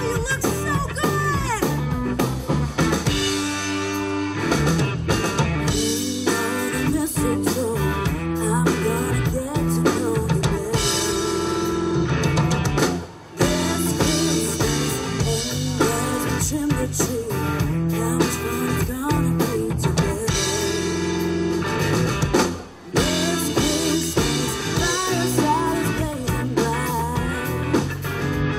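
A live band playing a song: a woman singing into a microphone over a drum kit, electric guitar and bass. The band stops briefly twice, about halfway through and again later.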